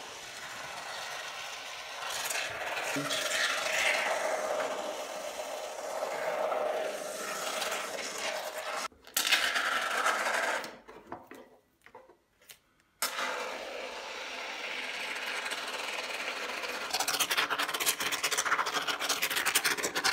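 Aerosol can of expanding spray foam hissing as foam is pushed into the gap around a window frame, stopping about nine seconds in and again for a couple of seconds, then spitting and crackling rapidly near the end.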